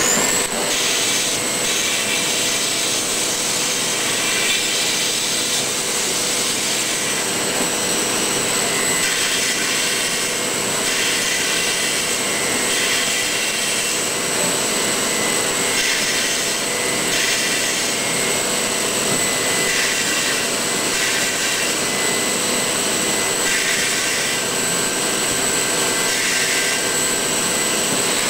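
Milling machine spindle running with a steady high whine while its end mill cuts pockets into a block of styrofoam; a hissing cutting noise comes and goes every few seconds as the tool moves through the foam.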